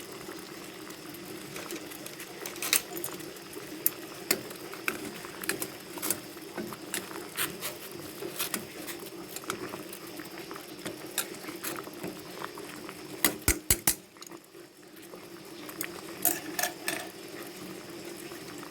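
Water boiling in a pot, with irregular sharp pops and clicks over a steady low hum; a quick run of four louder clicks comes a little past halfway.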